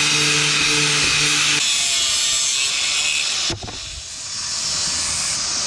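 Angle grinder grinding metal: a loud, steady hiss. The grinder eases off sharply about three and a half seconds in, then bites back in and builds up again.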